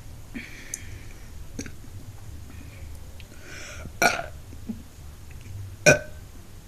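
A woman burping: two short, loud burps, about four and six seconds in.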